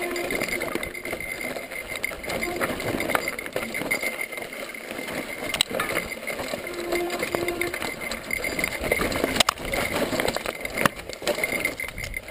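Mountain bike rattling down a rocky dirt trail, its tyres crunching over loose stones, with repeated sharp knocks as the wheels strike rocks. The loudest knock comes about two thirds of the way through.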